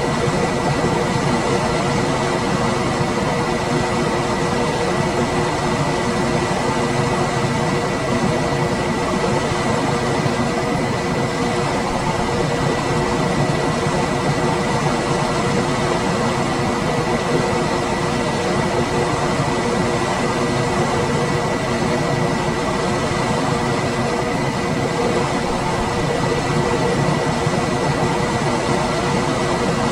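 Room air conditioner running steadily: fan air noise with a constant hum and a steady high whine, unchanging throughout.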